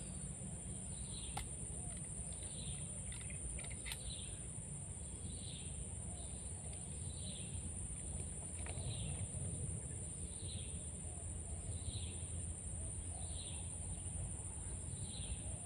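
Forest ambience: a steady high-pitched insect drone, with a bird's short falling call repeating evenly about every second and a quarter. A few sharp clicks sound in the first four seconds.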